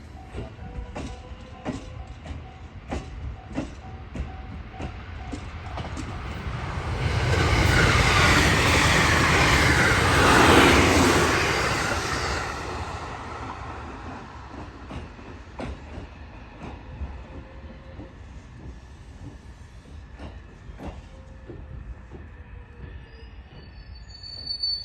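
Train passing on the track: a steady run of wheel clacks over the rail joints, with a louder rushing pass that builds from about six seconds in, peaks around ten seconds and fades away a few seconds later.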